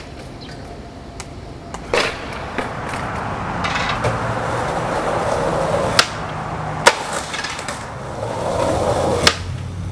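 Skateboard wheels rolling on pavement, broken by sharp clacks of the board popping and landing: one about two seconds in, two close together around six to seven seconds, and one near the end.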